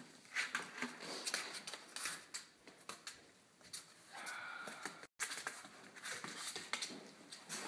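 Siberian Indian Dog puppies scuffling in play, with scattered scratching and clicking as paws and claws scrabble over the pen floor. A brief, faint, high whine comes about four seconds in.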